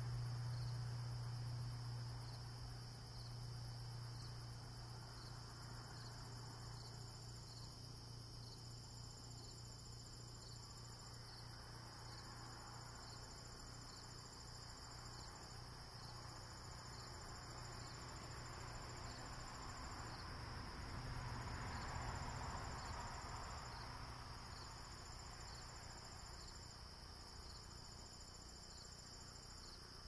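Late-summer evening insect chorus: crickets chirping steadily with evenly repeated pulses about once a second, and a higher insect trill that starts and stops in stretches of a second or two. A low steady hum lies underneath, and a faint rushing sound swells and fades about two-thirds of the way through.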